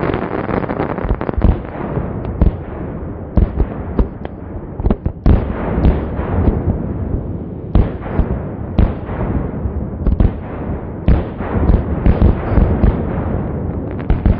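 Czech 63 mm fireworks cake firing a continuous barrage: shells launching and bursting overhead in an unbroken din, with sharp bangs standing out several times a second.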